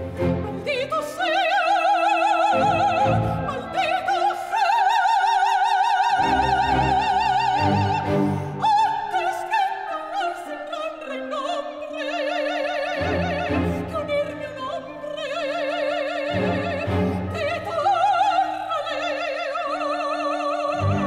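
Operatic soprano singing long, high-held phrases with a wide vibrato, accompanied by a symphony orchestra with bowed strings.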